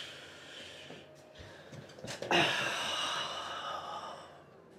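A man's breathy laughter in two bursts: a softer one at the start and a louder one about two seconds in that trails off.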